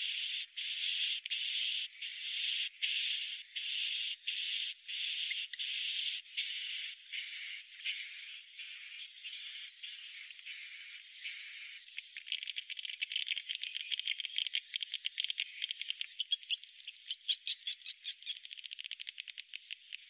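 Edible-nest swiftlet calls from a 'suara inap' roosting-call lure recording, the sound played in swiftlet houses to draw the birds in to roost. Buzzy chirps, each ending in a rising squeak, repeat about one and a half times a second. About twelve seconds in they give way to a quieter, rapid clicking twitter.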